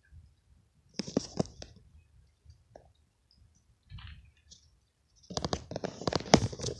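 Phone handling noise: clusters of sharp clicks and rubbing as the phone is gripped and moved. A short burst comes about a second in, and a longer, louder one starts about five seconds in as the phone is swung downward.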